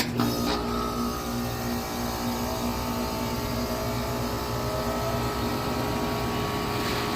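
Goodman GSZ14 3.5-ton heat pump starting up: a click as it switches on, then the compressor and outdoor fan come up to a steady running hum with several steady tones.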